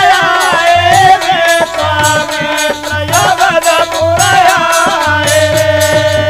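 Indian Holi folk music: a melody line that bends in pitch over a steady beat of dholak and jingling percussion.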